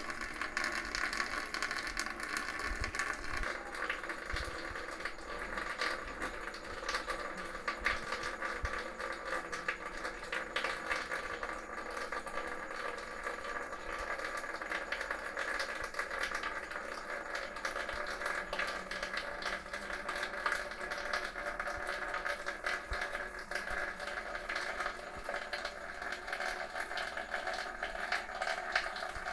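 Thin stream of tap water running and splattering, with a cat's quick lapping at the stream as fine rapid ticks.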